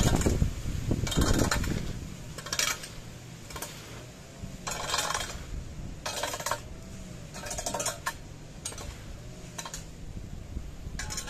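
Rake tines scraping over a tarmac driveway, dragging hedge clippings together in short, uneven strokes, about one a second.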